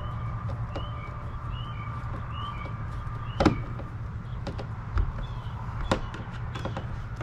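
Small hard plastic clicks and knocks from hands fitting a cable cap and screws onto a plastic kayak. The sharpest comes about three and a half seconds in, with two lighter ones near five and six seconds. Under them are a steady low hum and a bird's short chirps repeating.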